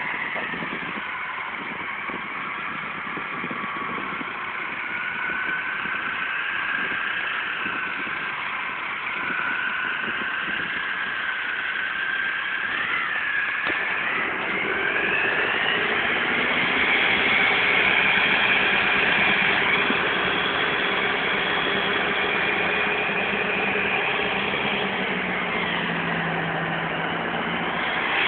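Farm tractor diesel engines working in deep mud: a steady engine drone with a higher whine over it. About halfway through the engine note rises and gets louder, then holds there.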